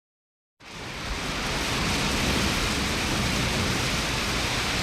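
Steady heavy rain: a dense, even hiss of falling water. It cuts in suddenly out of silence about half a second in and quickly swells to full level.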